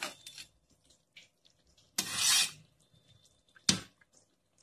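A spoon scraping and knocking in an aluminium pot while stirring biryani rice. There are a few faint clicks early on, one loud scrape about two seconds in, and a single sharp knock near the end.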